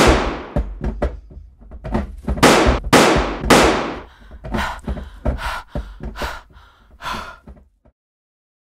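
A run of loud bangs and thuds: one hit right at the start, three heavy sharp bangs in quick succession in the middle, then several lighter knocks. The sound cuts off to silence shortly before the end.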